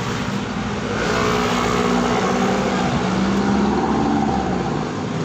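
Road traffic: a motor vehicle's engine driving past on the adjacent road, growing louder about a second in and easing off near the end, over steady traffic noise.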